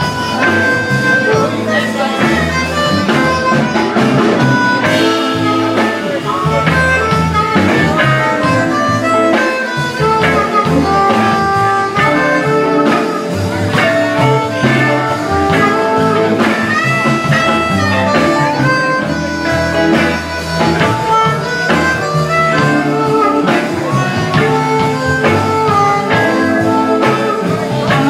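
Live blues band: a harmonica cupped against a vocal microphone plays held and bending notes over electric guitars, bass, keyboard and drums.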